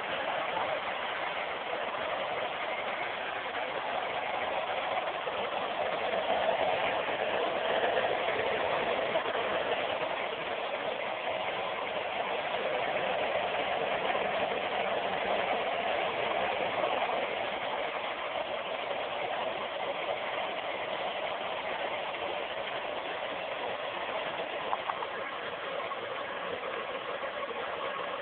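Hair dryer running steadily, blowing air to dry a wet dog's coat.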